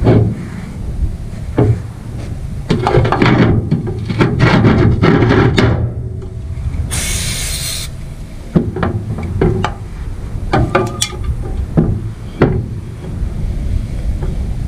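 Metal vise parts knocking and scraping on a steel work table, with a rag rubbing over them. About seven seconds in comes a one-second hiss of brake cleaner sprayed from an aerosol can, followed by a few sharp taps.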